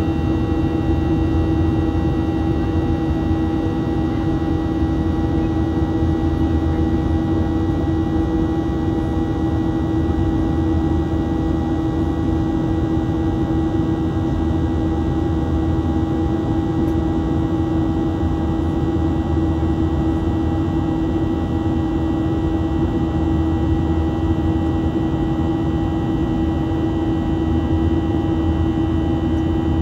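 Boeing 737-700 cabin noise in flight: a steady drone from the CFM56-7B jet engines and airflow, with a constant hum running through it.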